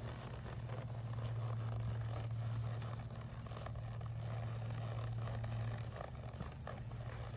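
Brabant draft mare walking on grass, with soft hoof thuds. A steady low hum runs under them and drops out about six seconds in.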